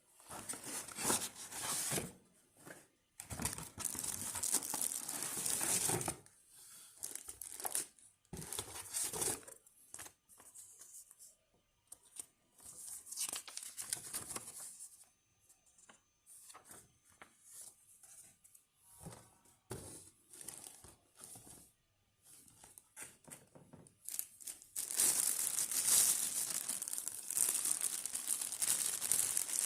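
Packaging being handled and opened: plastic and paper crinkling and tearing in irregular bursts with short pauses. It grows busier and louder for the last few seconds.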